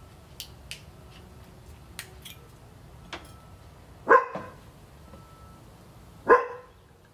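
A dog barks twice, about two seconds apart, both barks loud and short. Before them come a few light clicks and taps.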